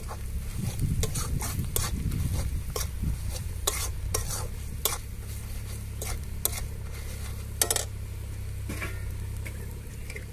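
Spatula scraping and knocking against a kadai at irregular moments while frying spice masala of onion, ginger-garlic paste and ground spices is stirred in oil, with a low sizzle and a steady low hum underneath.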